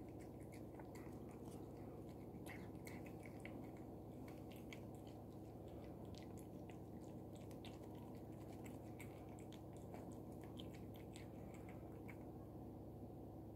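A cat chewing and licking up small pieces of raw food from a plastic tray: a quick run of faint wet clicks and smacks over a steady low hum.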